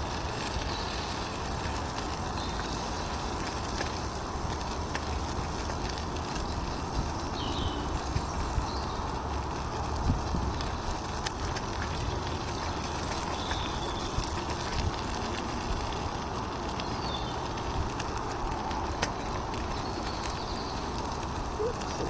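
Portable gas camping stove burner running steadily with a constant hiss, with a few faint clicks from a utensil in the pan.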